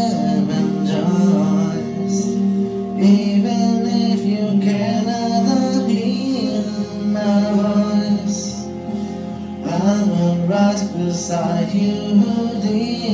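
Music: sustained keyboard chords with a male voice singing a slow melody over them.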